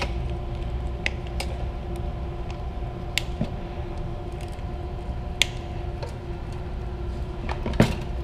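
A steady machinery hum with a low rumble, broken by scattered light clicks and taps as gloved hands handle a motor control center bucket's wiring harness and metal door.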